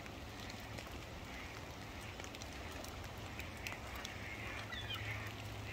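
Steady hiss of light rain with scattered soft drop ticks, and a few faint, distant calls from Canada geese, one falling in pitch near the end.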